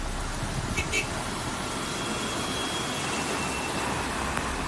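Tour coach driving through deep floodwater: a steady rush of water churned and thrown off its wheels, over the vehicle's running noise. Two short clicks come about a second in.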